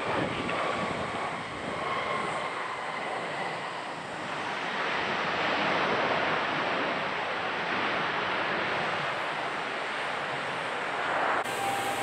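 Airbus A320 airliner's jet engines at takeoff power: a broad rushing roar that swells about four seconds in and holds, then cuts off abruptly near the end.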